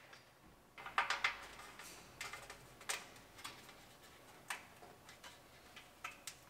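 Faint, scattered plastic clicks and taps, about a dozen short ticks at uneven intervals, as plastic trim pieces and parking-sensor bezels are pressed into place on a pickup's front bumper.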